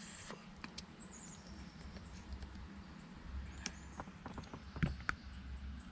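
Faint scattered clicks and light knocks of hand tools and plastic trim being handled while prying at a steering-wheel airbag, over a low steady hum, with a few brief faint squeaks.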